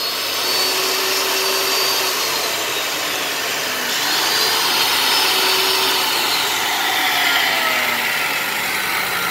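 Benchtop mini metal cut-off saw, rated 5,500 rpm, running with no load: its motor whine slowly drops in pitch as it coasts down, then about four seconds in it is switched on again, jumps back up to full speed and again slowly winds down.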